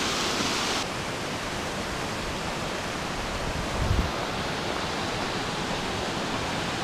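Small waterfalls and a stream rushing over mossy boulders: a steady, even rushing hiss. It is brighter for the first second, then a little softer, with a brief low buffet about four seconds in.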